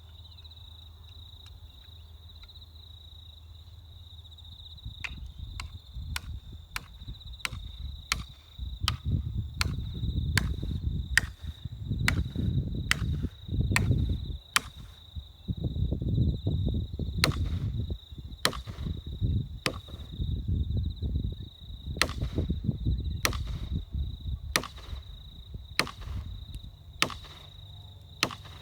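Repeated sharp chopping blows into the hard, dry wood of a dead forest red gum, starting about five seconds in and coming every half second to a second. Under them, a steady high insect buzz.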